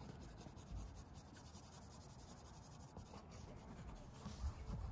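White oil pastel rubbing on brown paper grocery-bag paper in short, irregular strokes, faint.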